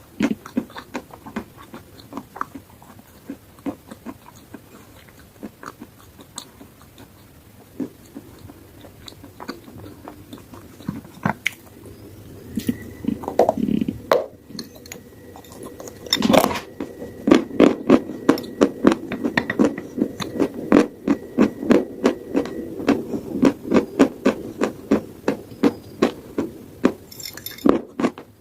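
Close-miked biting and chewing of dry edible chalk, crisp crunches. Scattered crunches in the first half, then a sharp bite about halfway through and steady chewing at about two crunches a second.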